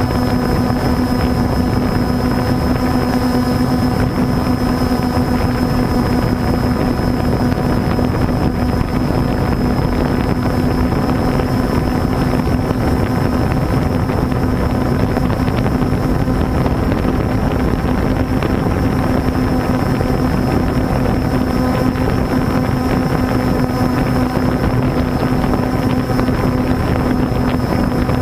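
DJI Phantom 2 quadcopter's four electric motors and propellers running at steady speed, a loud even buzz with a thin high whine, mixed with wind rushing over the microphone.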